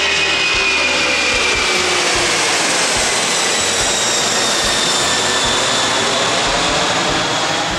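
Loud, steady jet noise from a four-engine Thai Airways airliner passing low overhead. Several engine whines slowly fall in pitch as it moves away.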